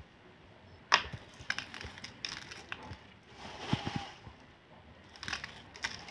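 Crispy besan sev (gram-flour noodles) being crumbled by hand onto a plate of food: scattered light crunches and crackles, with a sharper crack about a second in.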